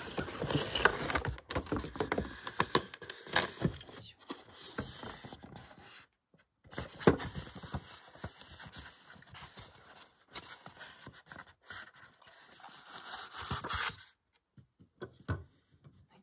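Model-truck packaging being opened by hand: cardboard box and styrofoam insert rubbed, pulled and knocked, a dense run of handling noise with many small knocks. About fourteen seconds in it drops away to a few light taps.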